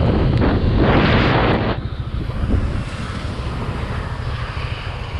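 Wind rushing over the microphone of a moving motorcycle rider, over a steady low rumble of engine and road. The wind noise is loud for the first second and a half, then eases sharply to a quieter, steady rush.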